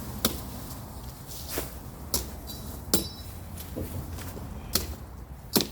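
Machete chopping brush and branches: about six sharp strikes at uneven intervals, roughly a second apart, some with a brief metallic ring from the blade.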